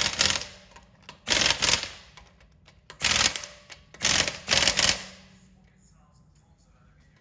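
Pneumatic impact wrench rattling in short bursts, about five in a row roughly a second apart, then stopping about five seconds in, as when wheel nuts are run on or off during a tyre change.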